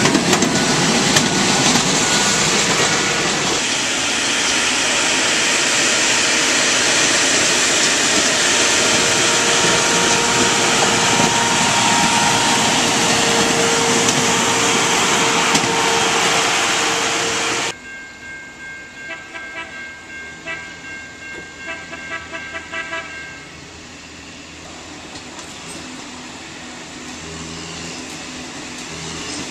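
Rail-mounted track-maintenance machines, an excavator and a tamper, rolling past close by: engines running and steel wheels on the rail, loud, with a steady whine in the middle. About eighteen seconds in the sound drops abruptly to a faint background, where a signal sounds in short repeated tones for a few seconds before a low steady rumble.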